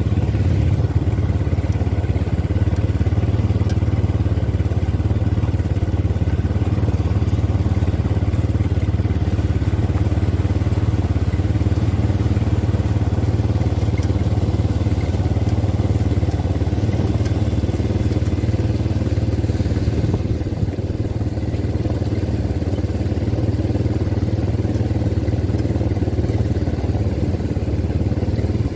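ATV quad-bike engine running at a steady cruising speed, a continuous low engine hum that holds level.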